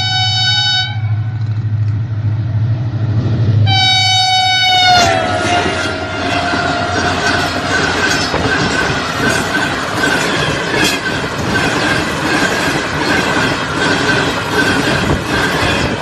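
HGMU-30 diesel locomotive's air horn sounding, breaking off about a second in and sounding again near four seconds, its pitch dropping as the locomotive passes at speed. The coaches then rush past with a fast clickety-clack of wheels over the rail joints.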